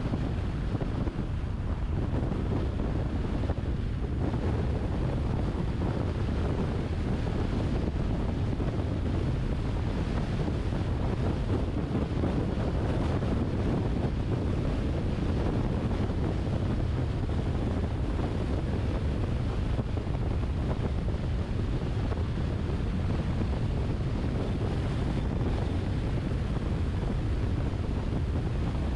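Steady tyre and wind noise of a car driving along an open road, strongest in the low range, with no engine note standing out.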